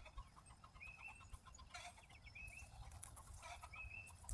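Faint chickens calling: short, high notes repeated about once a second, with a few faint small clicks.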